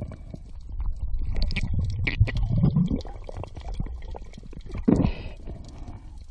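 Underwater water noise around the camera: low rumbling and gurgling with many small clicks, swelling louder in the middle and with one short loud rush about five seconds in.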